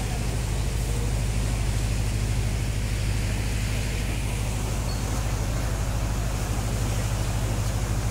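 Diesel engine of the cacilheiro ferry Sintrense running under way with a steady low drone, over the rushing of water along the hull and wake.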